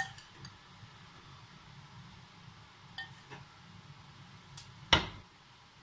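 A metal tablespoon clinking a few times against a glass bowl and the pan while flour is spooned into melted butter, with one sharp knock about five seconds in, over a faint low hum.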